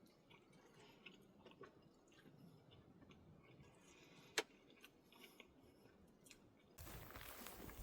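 Faint, close chewing of food with small soft clicks, and one sharp click about four and a half seconds in. Near the end a louder, steady rushing noise cuts in.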